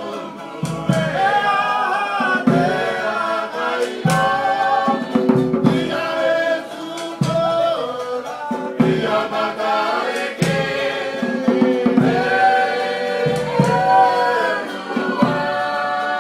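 A group of voices singing together in harmony, a melodic choral song, punctuated by sharp percussive beats.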